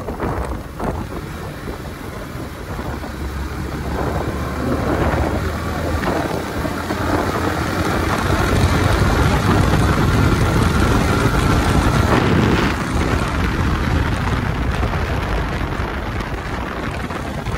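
Motorcycle riding at speed: wind rushing over the microphone over the engine's running rumble. It grows louder through the middle and eases off after about twelve seconds.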